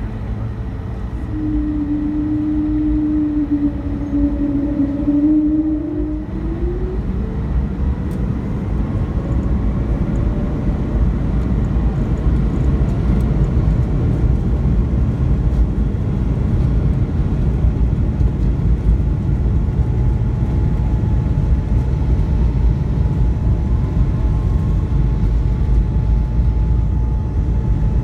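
Inside the cabin of an Airbus A220-300 during takeoff, its Pratt & Whitney PW1500G geared turbofans are heard. A whining tone rises and fades about six seconds in as the engines spool up, then a loud, steady rumble builds slightly through the takeoff run.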